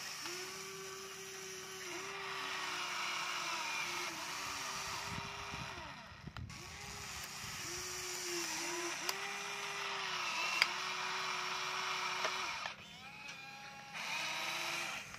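Huina remote-control toy excavator's electric motors whining in short runs of about one to two seconds as the arm, bucket and turntable move. Each run starts and stops with a quick dip in pitch, sometimes with two motors going at once.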